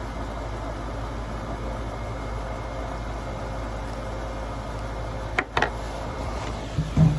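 Steady low hum in the background, broken by two sharp knocks about five and a half seconds in, then a short low burp near the end, the loudest sound.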